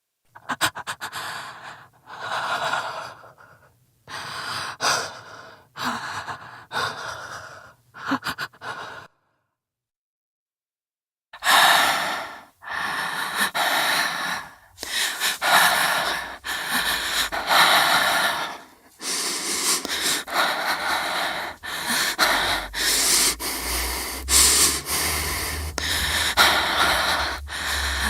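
A woman's tense, open-mouthed breathing, stuttering and shaky as if shivering with cold. First a few separate breaths, then, after a short silence, faster and almost unbroken gasping breaths.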